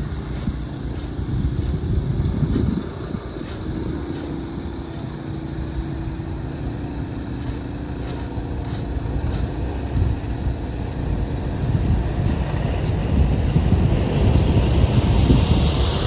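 Snowblower engine running steadily while clearing deep snow, getting louder in the last few seconds.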